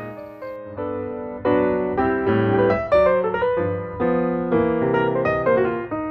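Background piano music, a run of notes and chords.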